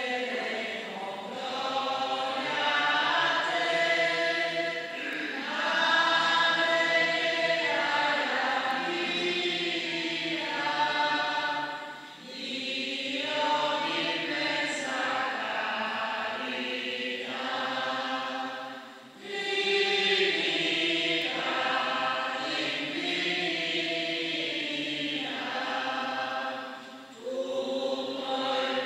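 A hymn sung by many voices: the entrance hymn of a Catholic Mass, sung while the clergy process to the altar. The singing comes in long phrases, with short breaks about twelve, nineteen and twenty-seven seconds in.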